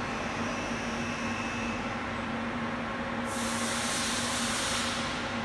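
Steady machine hum with a constant low tone. A little past three seconds in, a burst of hissing air starts and lasts about a second and a half.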